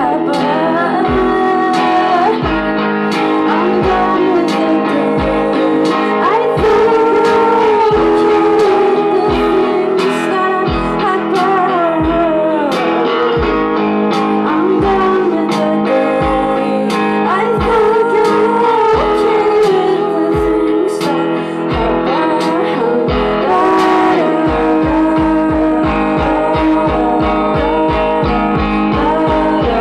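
A live band playing a song: electric guitar, keyboards and drums, with a woman singing. Near the end the low drum beats change to a fast, even pulse.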